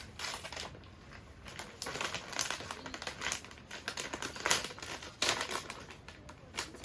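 Irregular crinkling and rustling of something being handled, in many short bursts.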